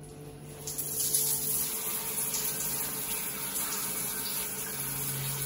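Shower turned on at a wall mixer, water spraying from the shower head onto the tiles as a steady hiss that comes in about a second in, with a steady low hum underneath.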